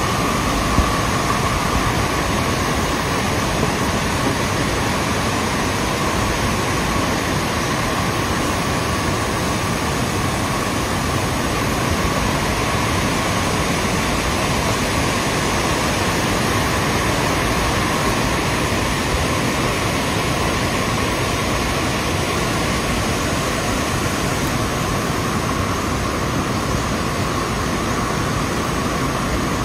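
Steady rushing of a small rocky stream, water running over boulders in an even hiss that does not change.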